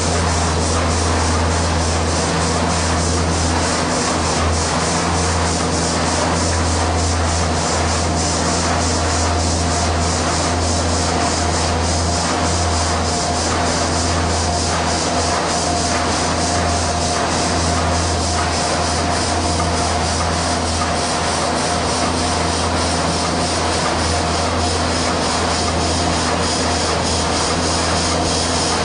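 Stationary steam engine, a Ruston & Hornsby 10HR single-cylinder diesel engine converted to run on steam, running steadily with an even, fast mechanical rhythm over a constant low hum and hiss.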